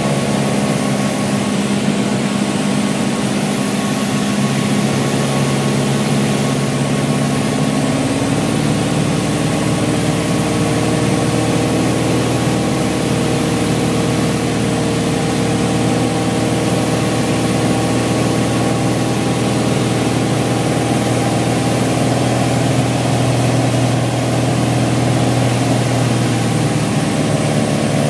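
Small airplane's engine and propeller droning steadily, heard from inside the cockpit on final approach. The engine note shifts about eight seconds in and shifts back near the end.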